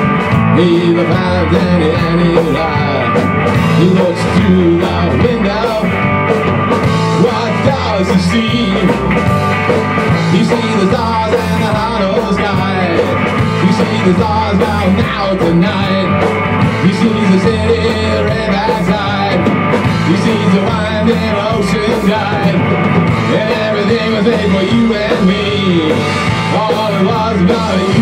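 Rock band playing live: amplified electric guitars over a Tama drum kit keeping a steady, driving beat, loud throughout.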